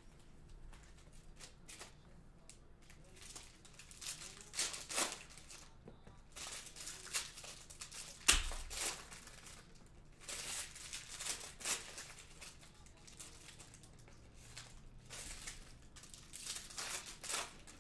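Foil trading-card pack wrappers crinkling and tearing as the packs are ripped open by hand, in irregular clusters of crackles, with one sharp snap about eight seconds in.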